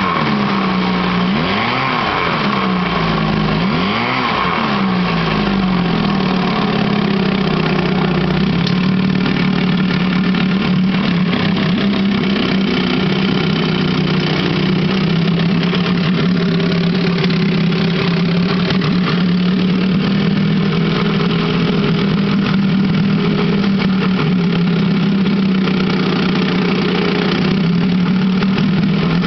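Vintage Wizard Super 5 two-stroke outboard motor running in a test barrel of water. It is revved up and down three times in the first few seconds, then settles to a steady run, its propeller churning the water in the barrel.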